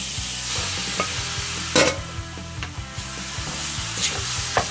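Raw shrimp sizzling in hot oil in a pan with a steady hiss, stirred with a wooden spatula that knocks and scrapes against the pan several times. The loudest knock comes a little under two seconds in.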